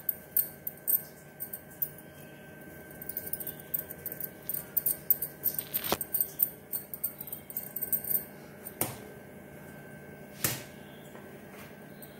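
Hand-handling sounds while a ball of paratha dough is shaped between the palms: rapid light clicking and tinkling for the first two thirds, then a few single louder knocks.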